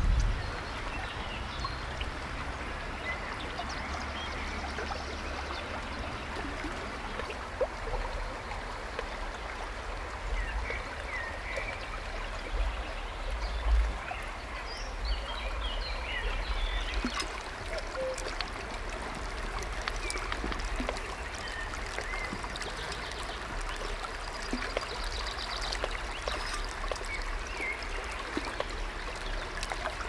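Steady rush of a shallow river flowing over stones, with small birds chirping now and then and a few dull low bumps close by.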